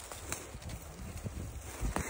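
Wind buffeting the microphone, with faint rustling and two short sharp snaps, the louder one near the end, as lingonberry leaves are picked from low forest plants.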